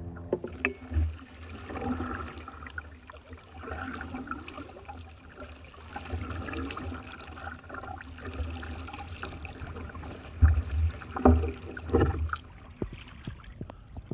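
Canoe paddling on open water: irregular paddle splashes and water sloshing against the hull. A few louder thumps come about ten to twelve seconds in.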